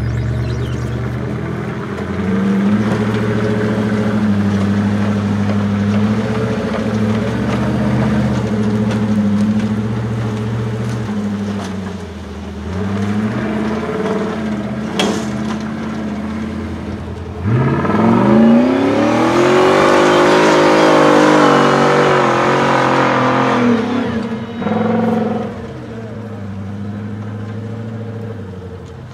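Off-road truck-trial prototype's engine running under load as it crawls over rough ground. About two-thirds of the way through it revs hard, its pitch rising sharply and holding for several seconds before dropping off suddenly, then gives one short blip and settles to a lower steady note.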